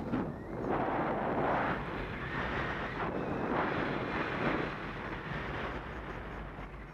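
Wind rushing over the microphone of a paraglider pilot's camera in flight, swelling and easing in gusts every second or so.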